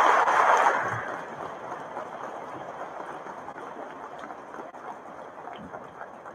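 Audience applause, loud at first, dying away about a second in to scattered clapping and a low crowd rustle.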